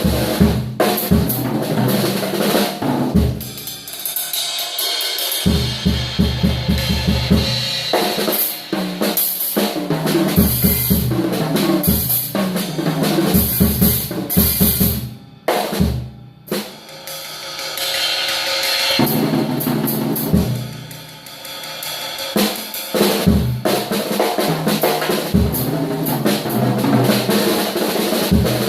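Drum kit played solo: fast rolls and fills across snare, toms and bass drum, with cymbals, broken by short pauses about halfway through.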